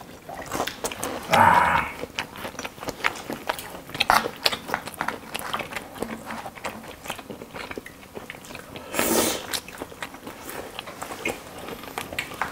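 Several people biting and chewing Korean street food: fried snacks, rice-cake tteokbokki and gimbap. There are frequent small clicks and crunches. A longer, louder noise comes about a second and a half in, and another near nine seconds.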